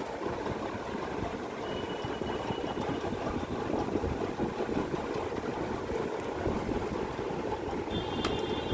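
Steady mechanical background hum, with a brief thin high tone a couple of seconds in and a short click with a little ringing near the end.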